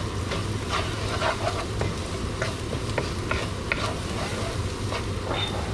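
Wooden spoon stirring and scraping dry rice grains around a nonstick frying pan, with a light sizzle as the rice sautés. The strokes come irregularly over a steady low hum.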